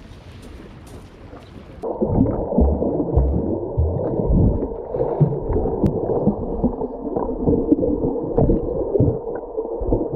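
Muffled underwater sound heard through a submerged camera: churning water, bubbling and low thumps from a swimmer's strokes over a steady low hum. It starts suddenly about two seconds in, after a faint airy background.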